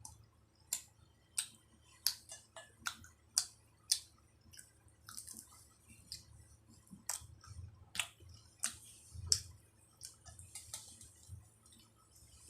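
A person eating samosa and jalebi close to the microphone: irregular crisp crackles and wet mouth clicks of biting and chewing, with several louder crunches around the middle.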